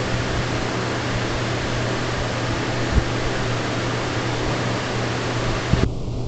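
Steady hiss with a low hum underneath, and a soft thump about halfway through and a few more near the end.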